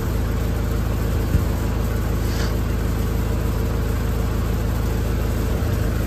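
Tractor engine idling steadily, with a steady low hum.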